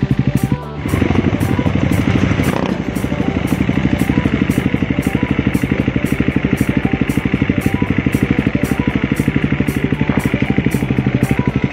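Motorcycle engine running with a rapid, even pulse, mixed with background music with a steady beat.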